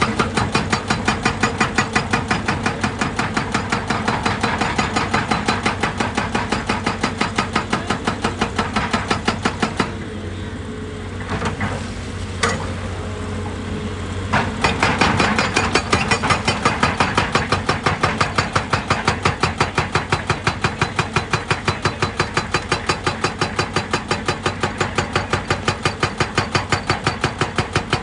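Heavy machine running with a rapid, even hammering of about four strokes a second over a steady engine hum. The hammering pauses for about four seconds partway through, with a single knock in the pause, then resumes.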